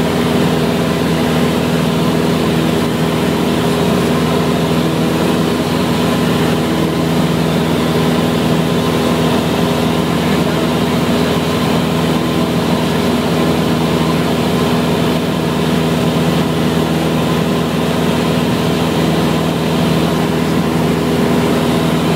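A Cessna's piston engine and propeller droning steadily, heard from inside the cabin, with an even pitch that never changes.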